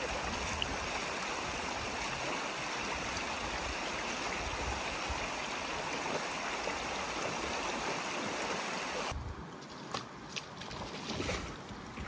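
Shallow creek water running steadily. About nine seconds in it cuts to a quieter flow with a few soft knocks.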